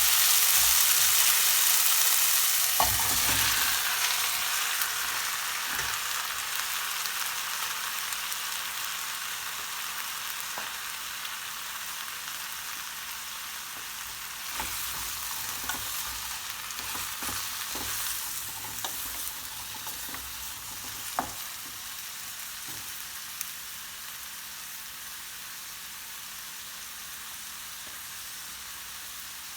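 Food frying in hot oil in a pan: a loud sizzle at first that slowly dies down, with a few sharp taps and scrapes of a spoon or spatula stirring.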